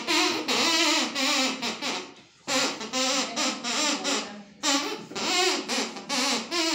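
Drinking-straw pipe played at the mouth, giving a buzzy, reedy melody in phrases with gliding pitch and short breaks for breath.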